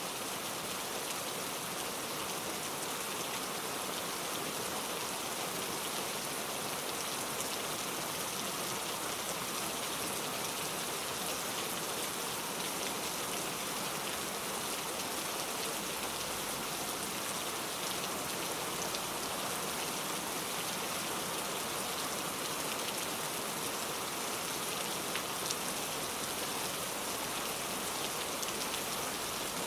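Heavy rain falling steadily, a dense even hiss of many drops hitting a surface, with individual drop strikes flecking through it.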